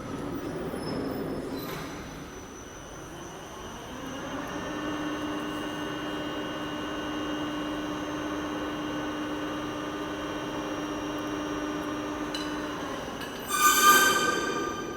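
A steady mechanical whine, one pitched tone with overtones, holds for about eight seconds and then stops. A moment later comes a brief, loud, high-pitched metallic squeal.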